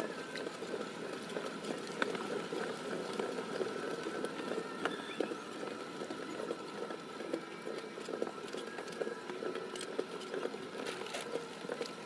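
Soft, irregular scrapes and dabs of hands pressing and smoothing a wet clay pot, with a steady faint hum behind.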